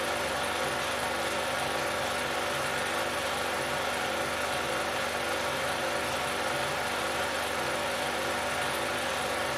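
Steady mechanical whir with a constant hum and a faint even flutter, typical of a 16mm film projector running while a silent amateur film is played.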